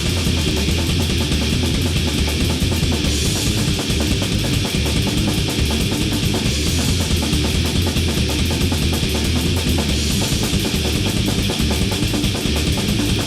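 Heavy metal music with no vocals: distorted guitars over fast, steady drumming that keeps a constant loudness.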